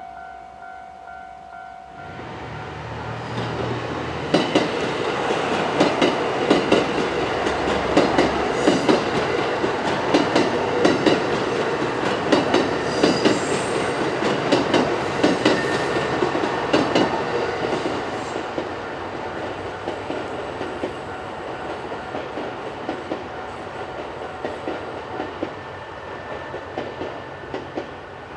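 The Hamakaze limited express diesel train passes over a level crossing. Its engine rumbles as it arrives about two seconds in, and its wheels clack in a steady rhythm over the rail joints before the sound slowly fades as it moves away. A level-crossing warning bell is ringing at the start.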